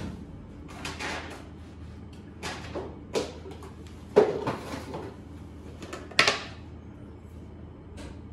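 A series of knocks and clatters from kitchen containers being handled, opened and set down, the loudest about four and a little after six seconds in.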